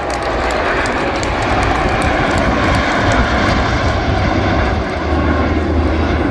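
Fixed-wing aircraft engine noise, loud and steady, swelling a little in the first second: a plane flying past.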